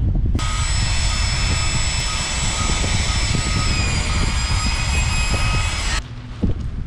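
Electric paddle-mixer drill mixing drywall joint compound in a bucket: a steady motor whine with several high tones. It starts about half a second in and stops abruptly at about six seconds, dipping slightly in pitch near four seconds as the load changes, with low wind rumble underneath.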